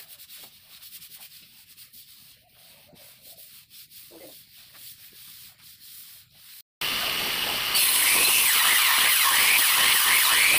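Faint rubbing of hands smoothing a sheet of HPL laminate down onto a cabinet top. About seven seconds in, the sound cuts abruptly to a loud, steady hissing, rushing noise.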